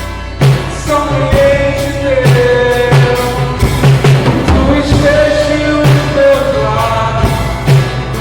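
Live worship band playing: a Dolphin drum kit keeps a steady beat with Orion cymbals, under acoustic guitar and a singer holding long notes, as picked up by a phone's microphone.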